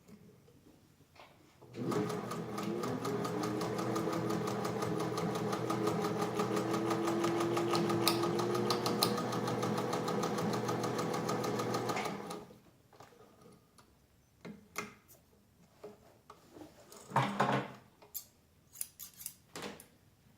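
Singer 201-2 sewing machine, with its gear-driven potted motor, sewing through six layers of canvas. It spins up quickly, then runs at a steady hum with rapid even needle strokes for about ten seconds and stops. A few light knocks follow.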